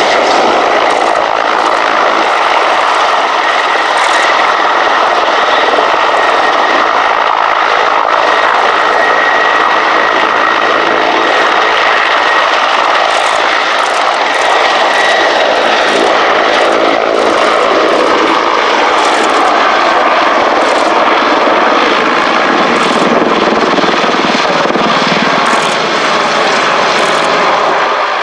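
Mil Mi-24V/35 Hind attack helicopter flying a low display pass: its twin turboshaft engines run loud with a steady high whine over the rotor noise, and the engine note shifts in pitch as it passes overhead.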